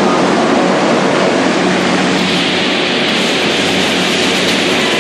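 Loud, steady rushing noise with a faint low hum underneath, turning brighter and hissier a little over two seconds in.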